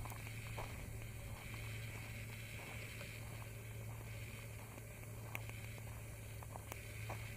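Light footsteps crunching on a gravel trail, heard as a few soft, scattered clicks over a steady low hum.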